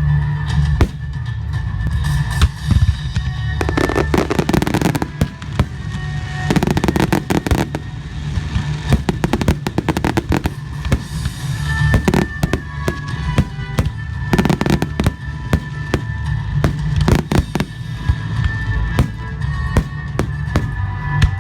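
Fireworks display in its final stage: many shells bursting in rapid succession with crackling, over a low rumble, with music playing alongside.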